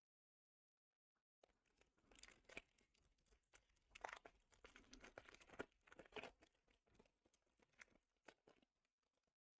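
Faint tearing and crinkling of a foil Pokémon booster pack wrapper being torn open and handled, in short irregular bits.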